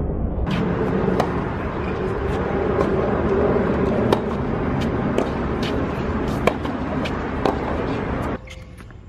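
Tennis balls being struck, sharp knocks about once a second, over a steady background noise that drops away about eight seconds in.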